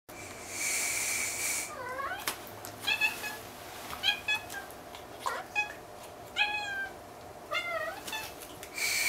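A Munchkin kitten meowing repeatedly: a string of short meows about once a second, mostly falling in pitch. Near the start there is a breathy hiss with a thin whistle in it, lasting about a second.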